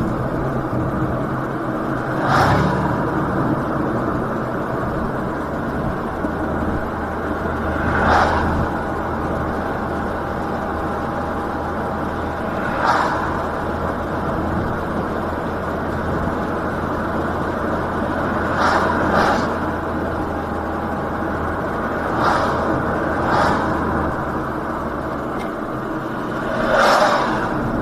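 Road and engine noise heard from inside a moving car's cabin: a steady drone of tyres and drivetrain, with a short swishing burst every few seconds. Near the end an oncoming truck passes with a brief whoosh.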